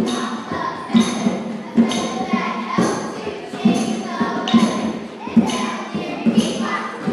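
Children singing or chanting over a steady drumbeat, one low beat a little under once a second, with a jingling rattle sounding on the beats.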